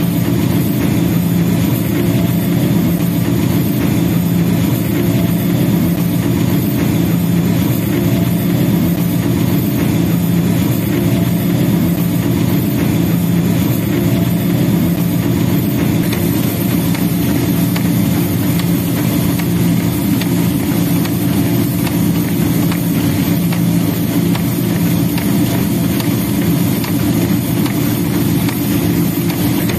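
Diesel locomotive running steadily at speed, heard from its cab: a deep, even engine drone over the noise of the train on the track.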